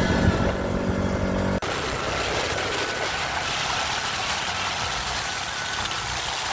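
Motorcycle engine running with a steady hum, which cuts off abruptly about a second and a half in to a steady rushing noise.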